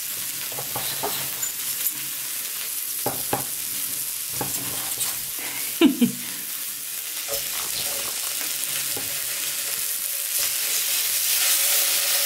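Steady sizzling from the hot Severin KG 2397 teppanyaki grill plate, with knocks of a chef's knife on a wooden cutting board as a cooked steak is sliced. The loudest two knocks come about six seconds in. Near the end the sizzle grows louder as steak pieces go onto the plate to sear.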